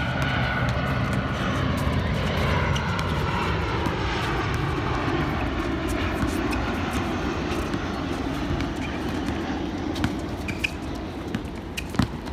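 Airliner flying low overhead: a loud, steady rumble with a faint whine that slowly falls in pitch as it passes. A few sharp ball bounces on the court near the end.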